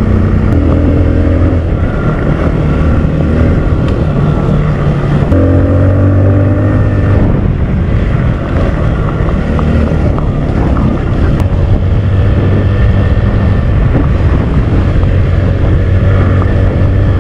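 Kawasaki KLX 150L's single-cylinder four-stroke engine running under way, its pitch stepping up and down with throttle and gear changes, with wind noise on the microphone.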